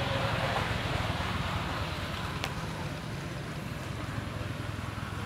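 Steady outdoor rumble of wind buffeting the microphone, with a single faint click about halfway through.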